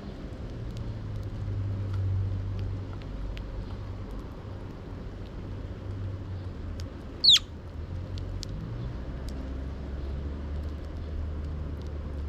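One loud, short chirp from a Eurasian tree sparrow about seven seconds in, over a low steady rumble, with faint ticks of the sparrows' beaks pecking seed on the wooden board.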